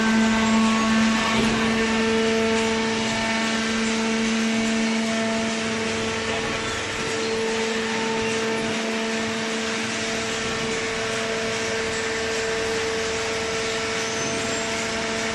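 Paper baler machine running: a steady mechanical hum with a constant drone over a broad hiss.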